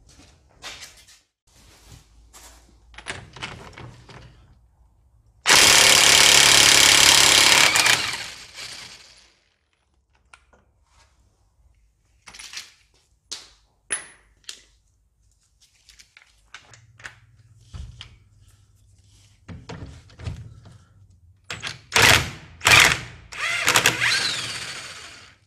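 Cordless impact wrench hammering on rusty front suspension nuts: one long burst of a couple of seconds, then several short bursts near the end. Scattered clinks and knocks of hand tools and parts between.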